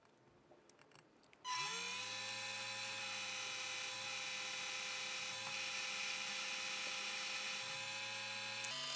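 Drill press motor starting about a second and a half in, spinning up quickly and then running steadily as the bit bores a blind hole into a press plate. A short click is heard near the end.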